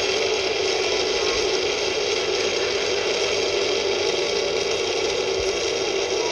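Metal fidget spinner spinning on its hub on a hard floor, making a steady, unchanging whir.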